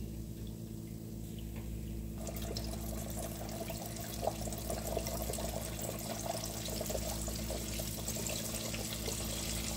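Hot oil sizzling and crackling in a cast-iron pot as floured fish pieces fry. The crackle picks up about two seconds in, as fresh pieces are dropped into the oil, over a steady low hum.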